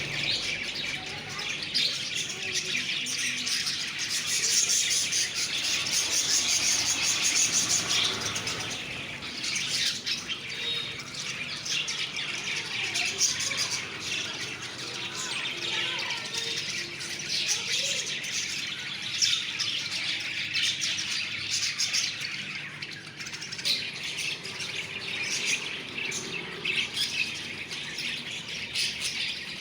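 Pet lovebirds chattering in their cage: a steady stream of rapid, high-pitched chirps and squeaky calls from several birds at once.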